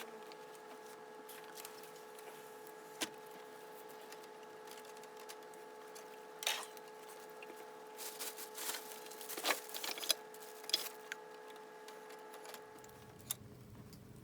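Wood fire of scrap SPF lumber crackling, with irregular sharp pops that come thickest around the middle of the stretch, over a steady faint hum.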